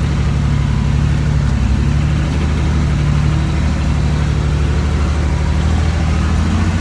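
Ford F-14000 truck's diesel engine running through a straight-pipe exhaust, a loud, steady low rumble as the truck moves off slowly.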